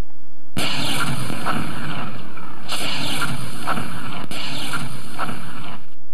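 Lightsaber duel sound effects: a loud electric buzz in three stretches, with a pair of sharp clashing cracks in each.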